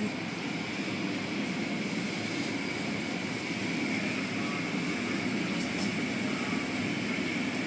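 Automatic car wash heard from inside the car: spinning cloth brushes and water spray scrubbing over the body and windows, a steady muffled washing noise with a faint steady high whine.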